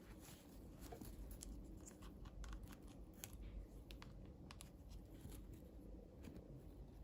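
Faint, irregular clicks and light crinkling from handling small plastic toy parts and packaging while unboxing.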